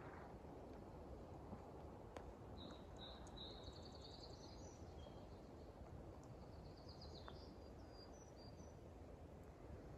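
Faint forest ambience: a small songbird sings high, rapid trilling and chirping phrases from about two and a half seconds in until near the end.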